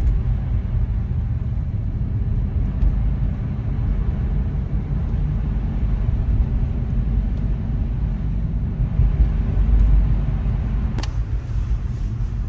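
Car driving on a snowy road, heard from inside the cabin: a steady low rumble of engine and tyres. A short click near the end.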